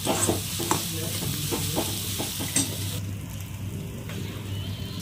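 Onion-tomato masala sizzling in a kadai while a steel ladle stirs and scrapes the pan in short strokes. About three seconds in the sizzle drops off suddenly and it goes quieter.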